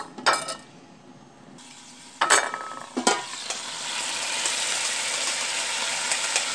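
Aluminium pot lid lifted with a metal clank and a couple of knocks. Then water is poured into the hot pot of browning pork, and a steady hissing sizzle swells up about three and a half seconds in and holds.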